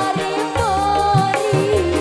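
A female Javanese singer (sinden) sings a sliding, ornamented melody into a microphone. A live ensemble accompanies her with low bass notes and drum strokes.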